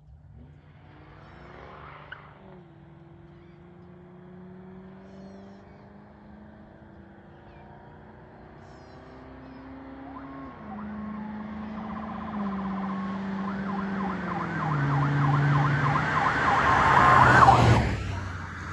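Straight-piped Ford Crown Victoria Police Interceptor's V8 exhaust growing steadily louder as the car accelerates toward the road edge. The engine note drops in pitch three times as it shifts up. It peaks as the car passes close by near the end, then falls away sharply.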